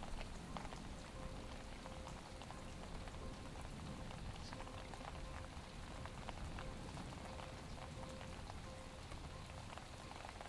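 Steady rain falling, many small drops ticking on hard surfaces close by.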